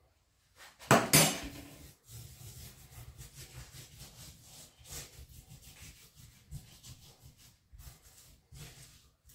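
Hands rubbing dry seasoning over a raw pork belly on a wooden cutting board, a steady scuffing of skin on meat and board. A single loud knock about a second in.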